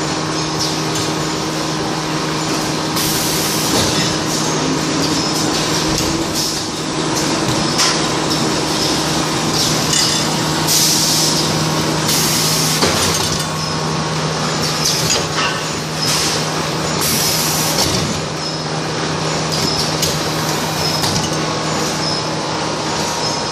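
Tissue-paper packing machine running with a steady hum and clatter of its mechanisms. Short hisses of compressed air from its pneumatic cylinders come several times.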